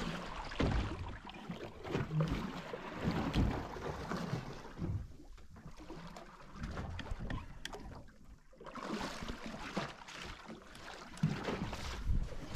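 Wind buffeting the microphone over water slapping against a small boat's hull, with irregular knocks and rattles of fishing gear being handled. It eases off for a few seconds in the middle.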